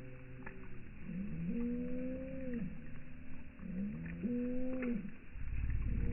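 Bird calls slowed down to a deep, drawn-out, moo-like pitch: three long calls, each rising, holding steady and then falling, about a second and a half apart. A low rumble comes in near the end.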